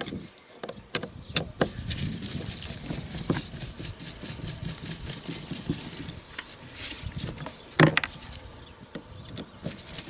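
Small metal clicks, taps and scrapes of a screwdriver working the screws out of a carburetor body held over a plastic tub, with one sharper knock near the end.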